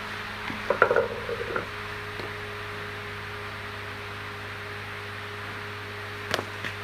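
A few knocks and clunks about a second in, then a sharp click near the end, as shoes press down on a motorcycle rear sprocket to seat its carrier and new drive rubbers in the wheel hub. A steady hum and hiss runs underneath.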